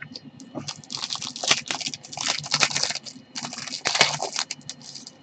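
Trading cards in gloved hands being shuffled and slid against one another, making rapid papery clicks and rustles in three bursts, roughly a second, two seconds and three and a half seconds in.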